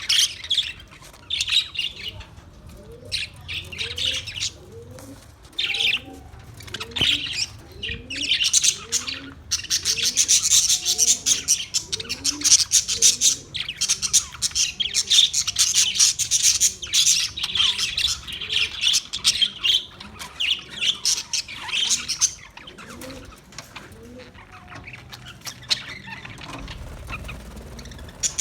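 Several parrots chattering with rapid, high-pitched chirps and squawks. The chatter is densest in the middle of the stretch.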